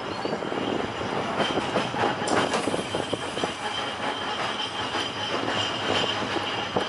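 Open-top electric tram running on rails: a steady rumble full of wheel clicks over the track, with a thin high whine throughout.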